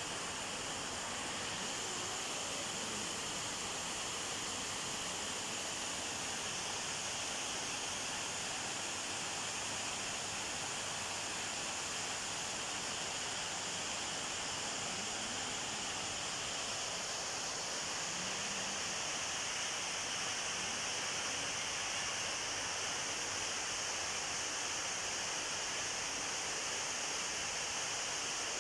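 Steady, even hiss of background noise with no distinct events, brightest in the high treble; no cat calls stand out.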